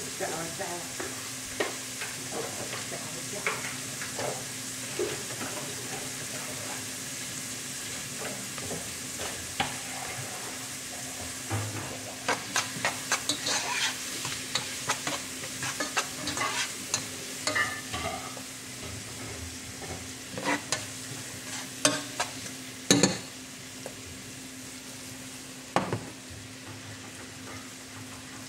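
Diced red onions sizzling in hot oil in a pot, with a steady hiss. From about twelve seconds in, a run of sharp clicks and scrapes from stirring the pot comes and goes for around ten seconds; the sizzle is softer near the end.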